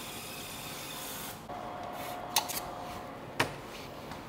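20 W fiber laser marking machine engraving letters, a steady hiss that cuts off suddenly about a second and a half in. A steady hum follows, with two sharp clicks about a second apart.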